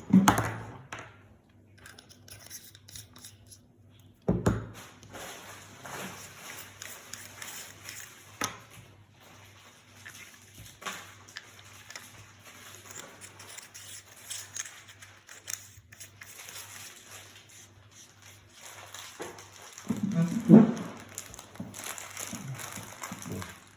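Hand-handling noise from a flashlight and its battery compartment being worked: light rustling, scraping and small clicks, with a sharp knock about four seconds in and a louder cluster of knocks and rustling near the end.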